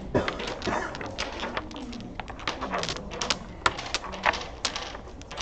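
Dominoes clicking and clacking against each other and the wooden table as they are handled and set down, in a quick, irregular series of sharp clicks.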